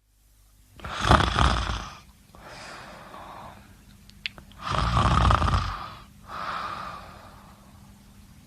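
A person snoring through two breaths. Each is a loud, fluttering snore on the in-breath followed by a quieter breath out. There is a short click just after the middle.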